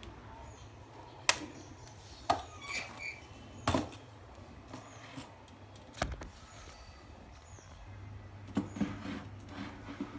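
A small aluminium-and-plastic tripod being handled on a wooden table: about six sharp clicks and knocks at irregular intervals over a faint steady hum.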